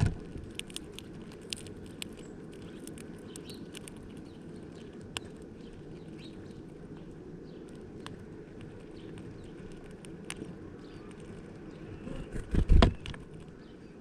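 Scattered sharp clicks and taps of a male Eurasian bullfinch pecking at seeds in a plastic-bottle feeder, over a steady low hum. A cluster of loud low thumps comes near the end.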